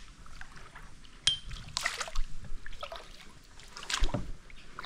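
Kayak paddle strokes splashing in calm water, with water trickling off the blades between strokes; splashes about two seconds in and again about four seconds in, and a sharp click a little over a second in.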